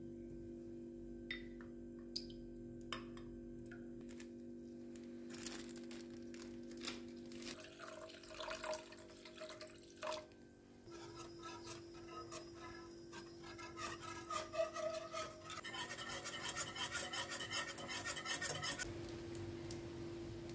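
Kitchen sounds at a pan of milk on the stove: a few light clicks of utensils on the pan, liquid poured into the pan around the middle, then a fast run of scraping strokes as a block of cheese is grated over it. Soft background music with long held notes plays underneath.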